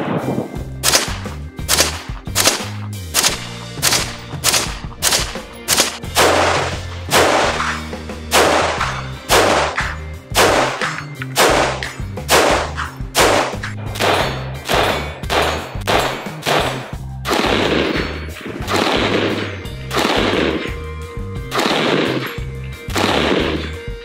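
Gunshots from a 10.3-inch-barrelled AR-15, fired in quick strings of about two shots a second, each with a short echo. The shots come less often near the end. Background music with a steady bass line runs underneath.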